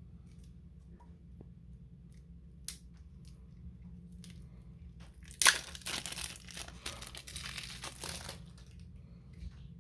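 Plastic wrapping on a deck of game cards being torn open and crinkled, starting with a sharp rip about halfway through and crackling for about three seconds; a single click comes a little earlier.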